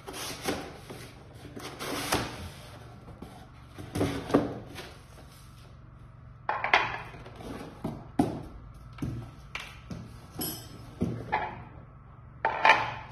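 Unpacking by hand: a cardboard box scraping and rustling, and a small metal-framed conveyor belt lifted out and set down on a tile floor, giving a string of irregular scrapes and knocks.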